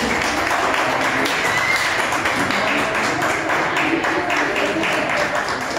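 Music playing over crowd noise, with many handclaps running through it.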